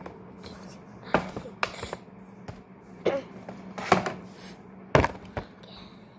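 About six sharp taps and knocks as a felt-tip marker and the slime are worked on a hard surface, over a steady low hum.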